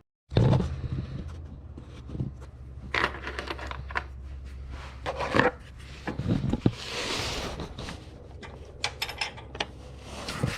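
Small metal parts clicking and clinking with scraping handling noise as a flat washer and retaining clip are worked onto a lawn tractor mower deck's lift arm, with a brief hiss about seven seconds in.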